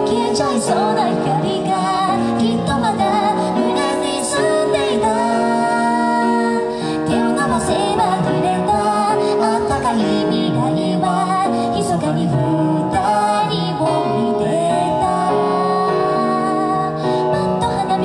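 A woman singing a slow pop ballad live into a microphone, accompanied by an electronic keyboard, both heard through the stage sound system.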